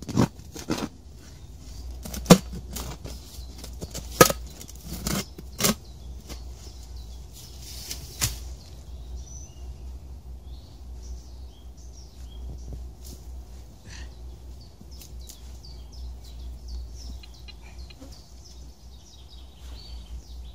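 A shovel chopping into soil and roots, with about seven sharp strikes in the first eight seconds. Quieter digging and pulling at the loosened earth follow.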